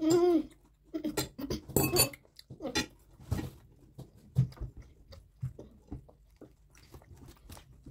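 Sounds of eating noodles by hand from a plate: scattered soft clicks, clinks and mouth smacks, fewer and fainter toward the end. A short hummed voice sounds right at the start.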